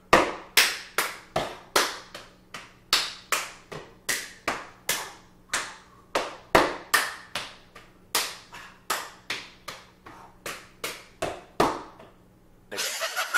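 A stepping routine at full speed: a quick run of hand claps, body slaps and foot stomps on a hardwood floor, about two to three strikes a second. The strikes stop near the end and music comes in.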